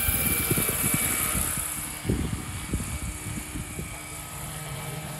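Large radio-controlled Bell 412 scale model helicopter (Roban 800-size) flying past: a high rotor and drivetrain whine with a rushing hiss, loudest in the first second or so and then fading as it moves away. Irregular low thumps of wind on the microphone run underneath.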